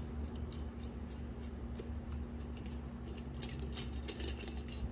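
Hand screwdriver tightening a screw into a metal access-point mounting bracket: faint, irregular metal clicks and scrapes, over a steady low hum.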